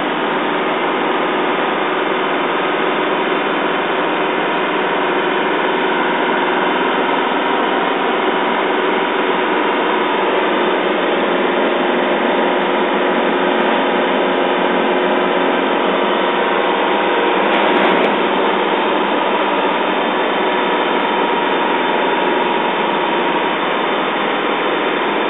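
Mercedes-Benz LP 808 truck's diesel engine running steadily, heard from inside the cab, with a brief click about two-thirds of the way in.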